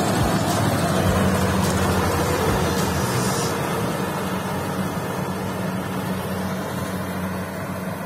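Kubota DC-70 Plus rice combine harvester's diesel engine running steadily under load as it reaps rice, a low even hum that grows slowly fainter as the machine moves away.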